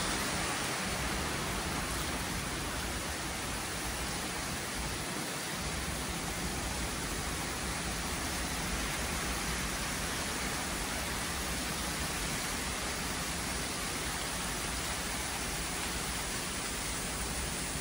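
Heavy hurricane rain pouring steadily through woodland trees, an even, unbroken hiss with no separate drops or other events.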